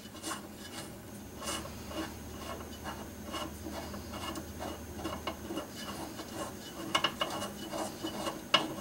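Wrench backing a large bolt out of a Corvair's oil cooler by hand: many small irregular clicks and scraping of metal on metal.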